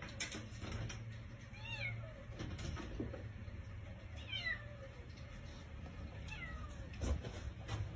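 A cat meowing three times, short calls that fall in pitch, with a few sharp taps of its paws against the glass storm door it is trying to get through, the loudest near the end.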